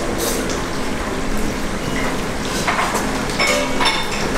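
Commercial kitchen background: a steady rushing noise with a few light clinks of pans and utensils about three seconds in.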